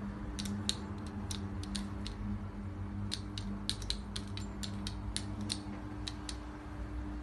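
Pizza cutter wheel cutting slits through rolled dough on a silicone mat, giving a string of sharp, irregular clicks every few tenths of a second, over a steady low hum.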